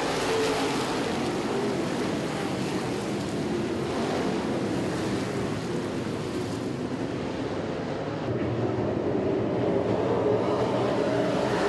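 A pack of NASCAR late model stock cars racing, many V8 engines running together in a steady, dense drone that grows slightly louder near the end.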